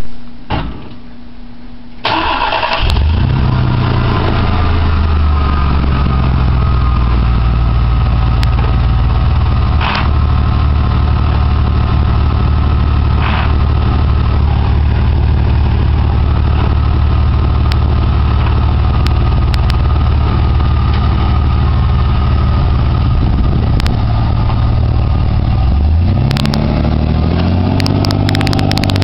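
1995 Chevy S10 pickup engine with a Cherry Bomb glasspack exhaust firing up about two seconds in, then idling steadily with a deep exhaust note. Near the end it revs up, rising in pitch, as the truck pulls away.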